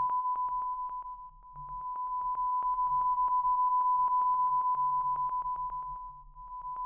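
A pure sine test tone from a loudspeaker, picked up by a rotating bidirectional (figure-eight) microphone. The tone pulses rapidly. It fades away about a second in as the side of the mic turns toward the speaker, comes back at full level when the rear faces it, then fades again near the end.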